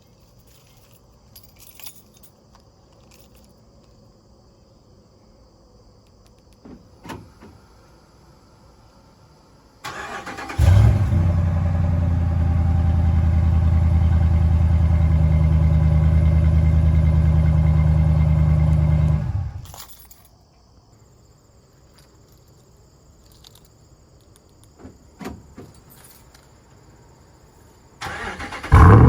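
2016 Ram 1500 pickup with a Carven Competitor aftermarket exhaust being started: the starter cranks about ten seconds in, the engine catches with a brief rev and settles into a steady, loud idle for about nine seconds, then is shut off. Near the end it is cranked and catches again; faint clicks come in the quiet stretches before each start.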